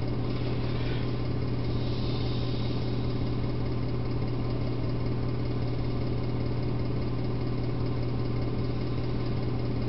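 A steady low hum with a faint hiss behind it, unchanging throughout.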